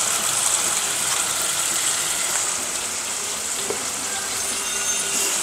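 Garlic paste and ground black pepper frying in butter in a pan: a steady sizzle.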